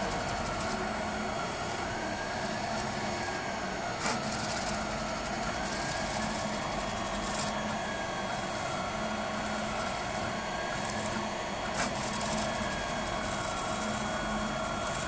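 Freebot 3D printer running a print: its stepper motors whine in a pitch that rises and falls as the print head traces the part, over a steady whir from the cooling fan. Two faint clicks, about four seconds in and near the end.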